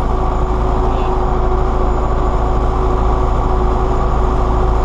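MTZ-82 tractor's four-cylinder diesel engine running steadily as the tractor drives, heard from inside the cab, with a steady whine over the low drone.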